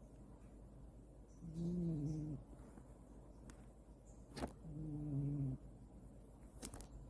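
A sleeping cat snoring, twice, each snore a low pitched drone about a second long, in a steady rhythm of roughly one breath every three seconds. A few sharp clicks fall between the snores.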